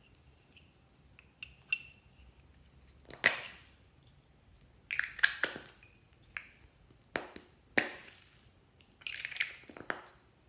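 Slime being squeezed and pressed by hand, giving a run of irregular wet pops and crackles about every second or two, the loudest near the middle.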